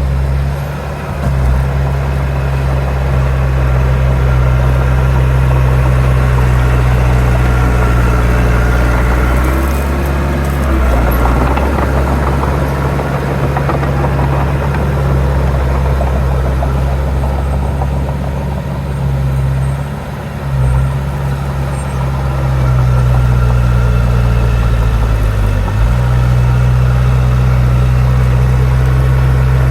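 Heavy diesel engines of earthmoving machines running steadily under load, with the engine note shifting briefly several times.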